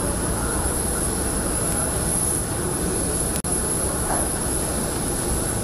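Jet engines of the Indonesian presidential Boeing 737 business jet running: a steady roar with a high, steady whine over it. The sound cuts out for an instant a little past halfway.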